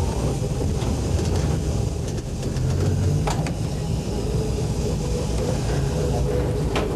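Heritage electric trolley car riding on its track: a steady low rumble with a faint hum, and two sharp clicks, about three seconds in and near the end.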